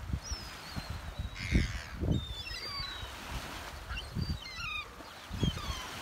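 A flock of gulls calling over the water, repeated short high cries, some falling in pitch and some in quick runs, with low rumbles of wind on the microphone.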